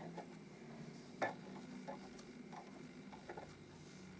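Small cleaning brush working under a sewing machine's removed needle plate, sweeping out lint and dust: faint scratching with a few scattered light clicks, the loudest about a second in.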